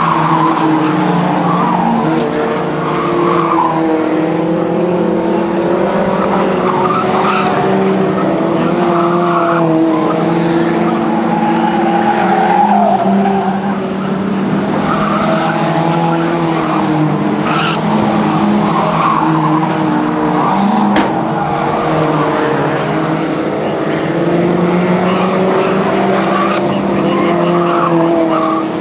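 Several historic stock cars (old saloon cars) racing together, their engines running hard and revving up and down as they go round the track, with one sharp click about 21 seconds in.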